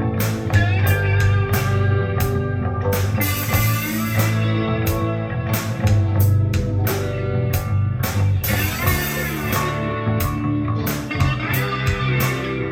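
Guitar-led music with drums played through ONKYO D-66RX speakers driven by a vintage Pioneer SX-45 stereo receiver, recorded in the room by microphone.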